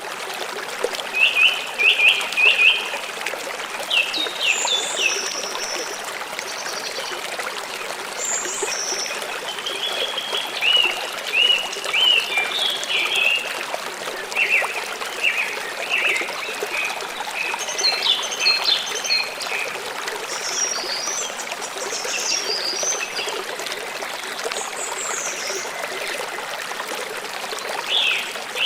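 Steady rush of a small waterfall, with birds chirping in short bursts of high notes throughout.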